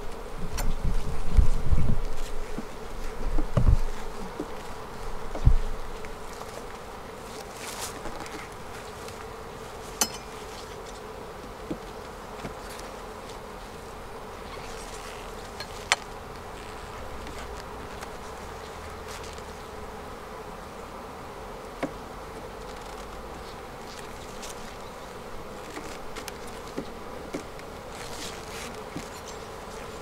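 Honeybees buzzing around an opened hive box, a steady hum. In the first few seconds there are low knocks and bumps as a hive tool pries the frames loose, then a few sharp clicks of wood on the frames.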